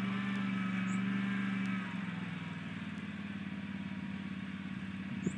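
Riding lawn mower engine running steadily, its hum shifting and easing slightly about two seconds in.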